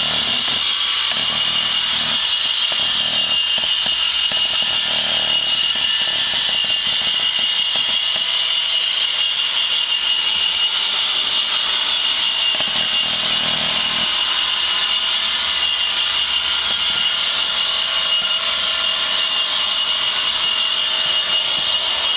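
OO gauge model trains running on the layout: a steady high whine and hiss, with an uneven low rumble that comes and goes.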